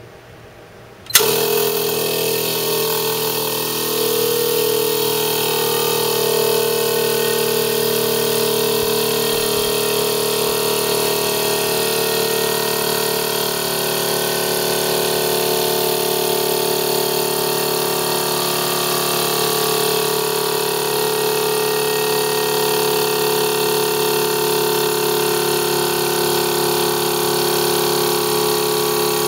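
A 12-volt DC single-piston air compressor (TWO STAR CT-15A-DC12V) switches on abruptly about a second in and runs steadily with an even humming drone, pumping up its small air tank from empty.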